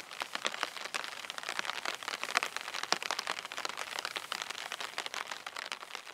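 Cloth bandana being rubbed and dragged through long, rain-wet grass: a dense crackling rustle full of small quick clicks and swishes, soaking up the water on the blades.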